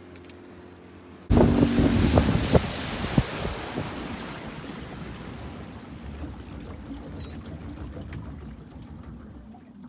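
Wind buffeting the microphone over the sound of water washing against a small aluminium fishing boat. It starts suddenly about a second in, loudest at first, with a few knocks, and eases off gradually.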